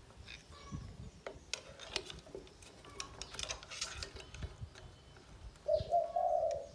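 Light metallic clinks, taps and scrapes as a new front fork shock absorber leg is worked onto the brake drum hub and axle of a Honda Super Dream motorcycle. Near the end comes a brief steady whine, the loudest sound.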